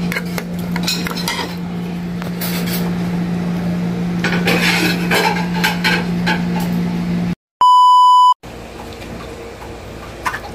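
A metal spoon or ladle clinking and scraping against a pot of beef stew, over a steady low hum. About seven seconds in, the sound cuts out and a loud electronic beep sounds for under a second, then fainter clinks follow.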